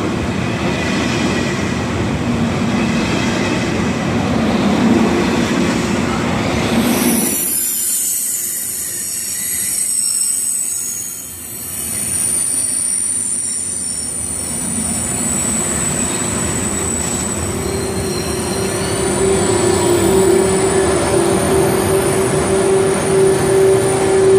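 Passenger train running through a station, first with a steady loud rumble; about seven seconds in the sound changes abruptly to a quieter hiss with high thin squealing. A lower steady squeal from the wheels builds and grows louder over the last third.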